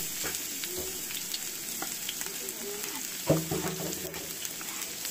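Chopped onion and garlic sizzling in hot oil in a frying pan: a steady hiss with small scattered pops. About three seconds in, a knock and a short scrape, with the wooden spatula at the cutting board.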